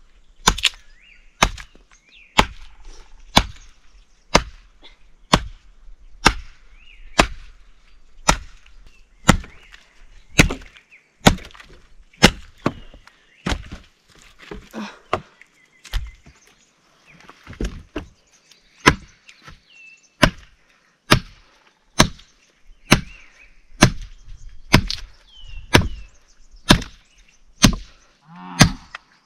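Firewood being chopped by hand: sharp, regular blows, roughly one a second, each one a crisp split of wood.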